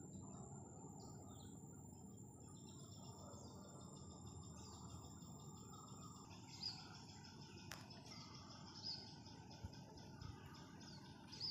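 Faint insect chorus: a steady high-pitched trill that stops about halfway, followed by repeated high chirps, with a few soft clicks.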